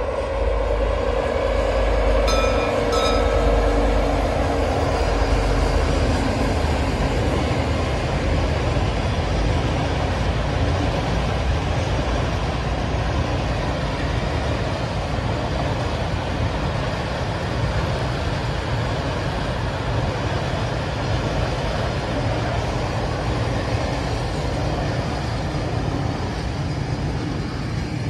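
Two VR Class Dv12 diesel locomotives hauling a freight train past. The engines' steady drone is loudest for the first few seconds and then fades, with two brief high tones about two and three seconds in. After that comes the steady rumble of the freight wagons rolling by on the track.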